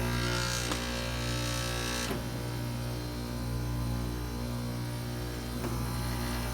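Trane XR14 3-ton heat pump outdoor unit running in a defrost cycle: a steady compressor hum with a hiss that falls away about two seconds in.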